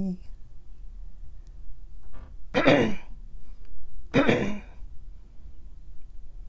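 A voice makes two loud, breathy non-word sounds about a second and a half apart, the first falling in pitch.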